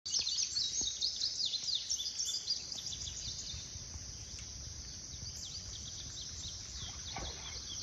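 Outdoor ambience of many birds chirping and singing: quick, high, overlapping calls, busiest in the first few seconds, over a steady low rumble.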